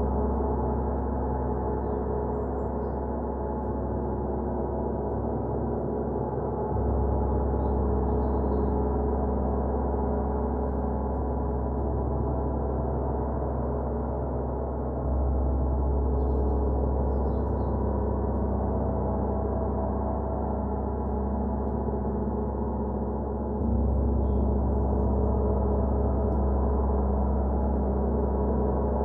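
Gongs being played for a gong bath: a dense, sustained wash of overlapping, shimmering tones. A deep low swell rises anew three times, roughly every eight seconds, as fresh strokes build on the ringing.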